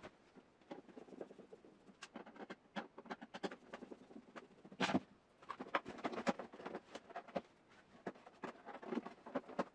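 Irregular clicks, taps and scrapes of the dehumidifier's hard plastic parts being handled, with a cluster of sharper knocks about five seconds in and again around six to seven seconds; the unit itself is not running.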